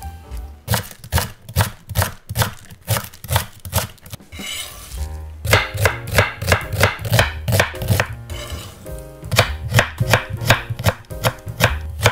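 Chef's knife slicing onion and then julienning carrot on a wooden cutting board, each stroke a sharp knock of the blade on the wood, about three a second in a few steady runs.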